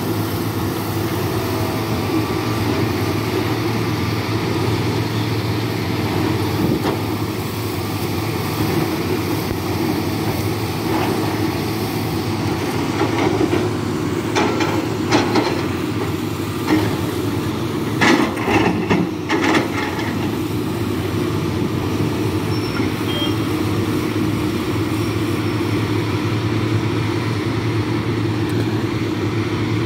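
Tata Hitachi 370 excavator's diesel engine running steadily under working load. About halfway through come two short bursts of knocks and scrapes as its steel bucket works against the stone.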